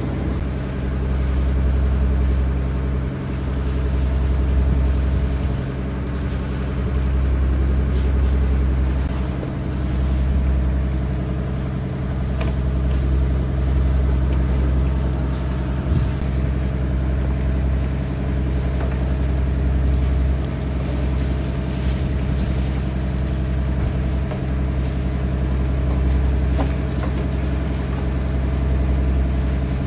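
Engine on a floating lift-net fishing boat running steadily with a loud, low drone that swells and eases gently.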